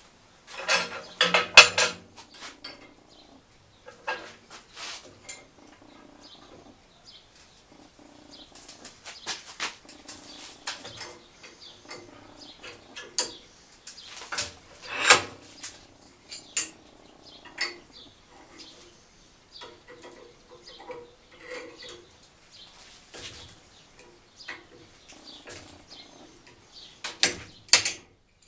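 Steel rods clinking and clanking against a steel cone mandrel held in a vise and against the steel bench plate as a rod is worked around the cone. Irregular metal knocks, loudest in a cluster about a second in, once near the middle, and again near the end.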